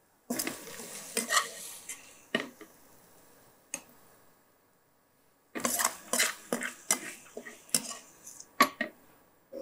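Metal spatula scraping cooked radish out of a dark kadai and knocking it off into a glass bowl: scrapes and clinks in two spells, with a pause of about two seconds between them.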